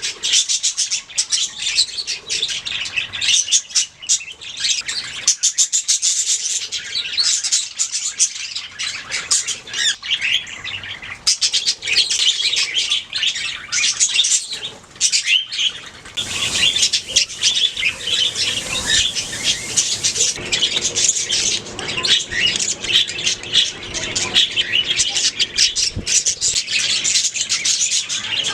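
Budgerigars chirping and warbling, a continuous fast chatter of many short high chirps with brief pauses.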